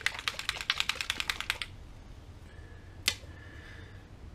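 A small bottle of airbrush paint (detail sepia) being shaken hard, rattling in quick even clicks, about nine a second, that stop about a second and a half in. One sharp click follows near three seconds.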